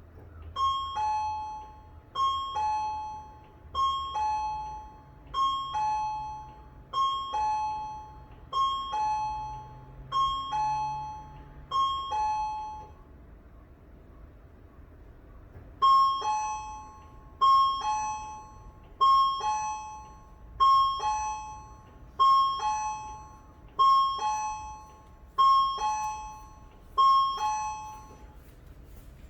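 Neptune (Resonant Systems) right/left-turn warning unit for buses (KH-1 control box, R-316 panel), the turn alarm that tells pedestrians a bus is turning. It sounds a high-then-low two-tone chime about every 1.6 seconds: eight chimes, a pause of about three seconds midway, then eight more.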